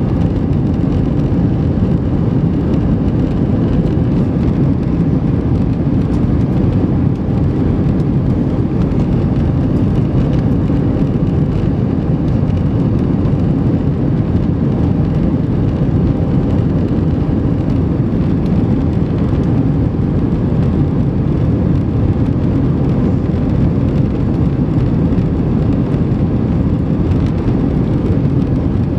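Steady cabin noise inside an Airbus A320 in flight: the low rush of the jet engines and airflow, with a faint steady hum on top.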